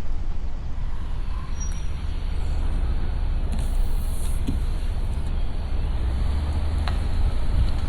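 Steady road and engine rumble of a car driving slowly, heard from inside the vehicle, deep and even throughout.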